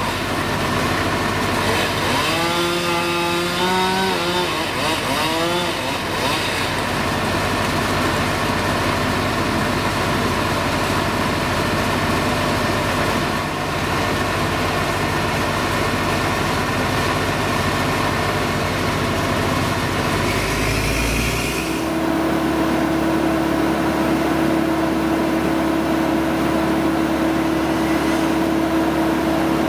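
Engines of tree-service machinery running steadily. A pitch wavers up and down a few seconds in, and about two-thirds of the way through the sound shifts to a steadier, higher drone.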